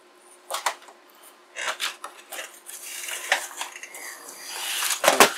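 Rummaging in a cardboard shipping box: scattered clicks and clacks of hard items being moved, then a rising rustle of packing being pulled out, and a sharp clack near the end.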